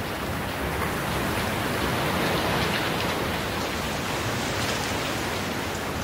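Steady hiss of rain and wet road heard from inside a moving car.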